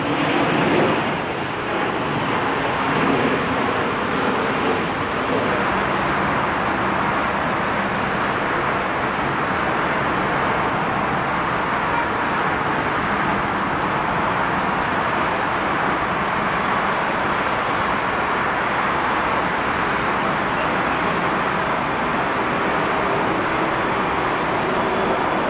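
Four-engined Airbus A380 turbofans at takeoff power during the takeoff roll and climb-out: a loud, steady rushing noise with a brief dip about a second and a half in.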